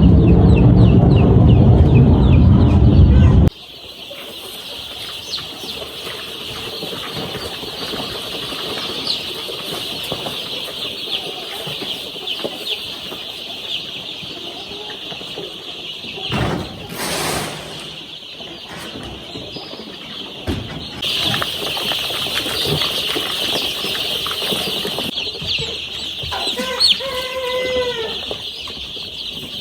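Many baby chicks, about four days old, peeping continuously in a dense high-pitched chorus, with a brief rustle around the middle and a few louder calls near the end. A loud low sound fills the first three and a half seconds and cuts off suddenly.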